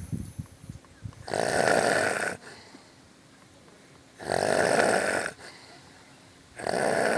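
A man snoring in his sleep: three loud snores about a second long, two to three seconds apart, with a low fluttering breath in the first second.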